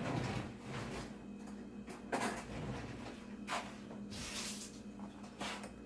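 Kitchen handling noises: several knocks and clunks, the loudest about two seconds in, and a short scraping rustle past the middle, over a steady low hum.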